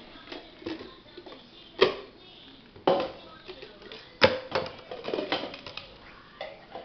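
Several sharp knocks and clicks of small hard objects being handled and set down, the loudest about two, three and four seconds in, with lighter ticks between.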